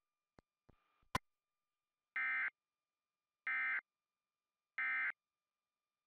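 Emergency Alert System digital data tones (SAME): three identical short buzzy bursts, evenly spaced about a second and a half apart. Three short bursts like this are the end-of-message signal that closes the national EAS test. A few faint clicks come before them.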